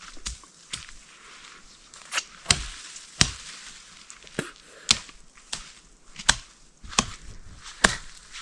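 Footsteps pushing through forest undergrowth: a string of sharp cracks and thuds, about one to two a second, unevenly spaced.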